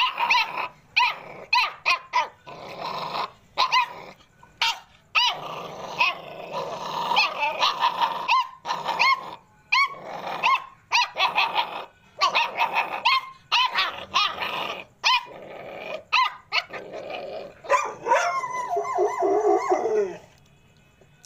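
Dogs barking and growling in short, sharp calls, roughly two a second and coming in irregular runs, which stop shortly before the end.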